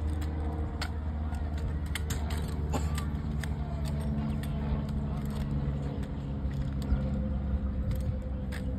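Scattered sharp taps and slaps from a drill rifle being handled, spun and caught by hand, over a steady low rumble and hum.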